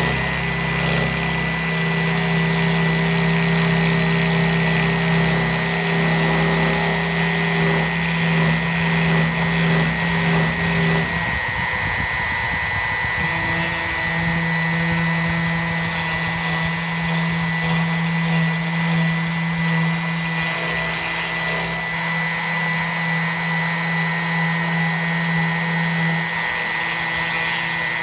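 DeWalt 660 router on an MPCNC machine milling pine with a single-flute bit at about 10,000 RPM, a steady motor hum and whine over the hiss of chips being cut; the hum breaks up briefly about eleven seconds in, then resumes. The router's speed is held steady by a PID controller under a heavy 5 mm-deep cut that would otherwise bog it down.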